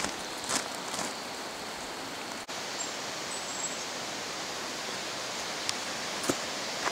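Mountain stream rushing steadily through a rocky gorge, with a few scattered footsteps, about half a second in and near the end.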